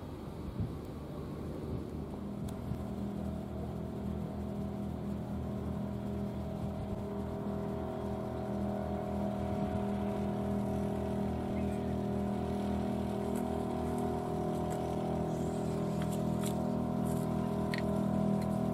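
An engine running at a steady pitch, slowly growing louder, with a few sharp clicks near the end.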